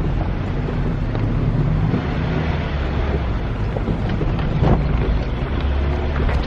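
Car driving on a rough dirt track: a steady low engine and tyre rumble, with wind buffeting the microphone through the open side window. A single knock about four and a half seconds in.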